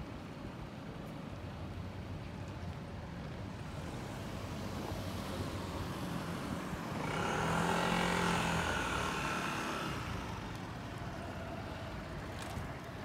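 A car driving past: its engine and tyre noise grow louder over several seconds, are loudest a little past halfway, then fade away.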